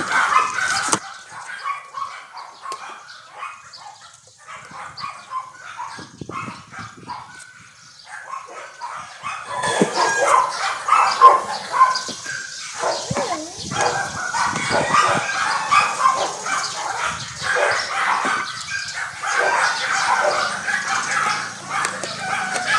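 A pack of small dogs, Pomeranians, barking and yapping over one another: scattered barks at first, then a dense, continuous chorus from about ten seconds in.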